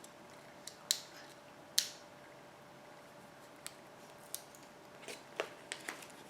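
Paper stickers and their sheet being handled: a scattering of short, sharp crinkles and clicks, the two loudest in the first two seconds and a quicker cluster near the end, over a faint steady hum.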